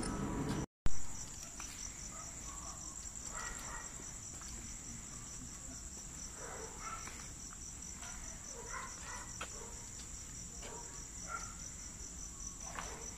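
Crickets chirring in a steady, high, unbroken trill. Just under a second in, the sound drops out briefly, and a single loud bump follows.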